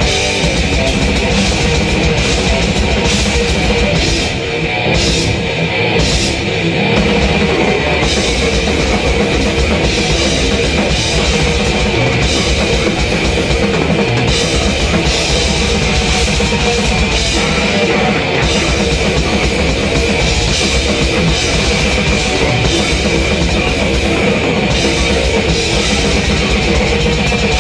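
Drum kit played fast and dense through a heavy metal song, the drums loud against the rest of the band's sound.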